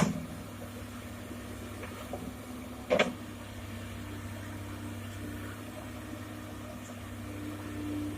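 Komatsu PC200-6 excavator's diesel engine running steadily, with a single sharp knock about three seconds in and the engine note rising slightly near the end.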